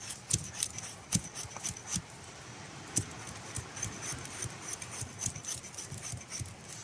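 Knife blade shaving wet softwood in short strokes: a quick, irregular run of light scrapes and clicks.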